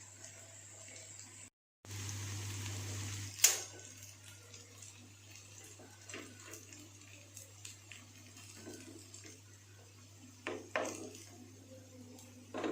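Faint kitchen handling sounds: scattered light clicks and clinks, with a brief stretch of even hiss about two seconds in, a sharp knock just after it, and a couple of small clatters near the end.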